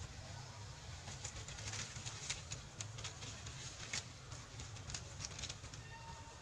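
Leaves and branches rustling and crackling in many short irregular clicks as macaques climb and swing through a tree, over a low steady rumble. A brief faint call sounds a little before the end.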